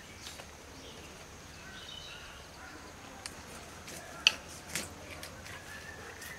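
Hand preparation of green beans and fish: a few sharp snaps and clicks, the loudest about four seconds in, over faint bird chirps.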